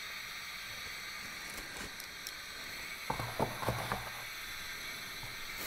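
A few light clicks and knocks, a little past the middle, as a SRAM Eagle XX SL rear derailleur is handled and lifted off a digital kitchen scale, over a steady faint hiss.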